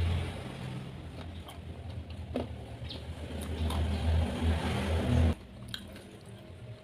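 Low, steady engine-like rumble that cuts off suddenly about five seconds in, with scattered small clicks of fingers handling sticky sauce-covered fried chicken.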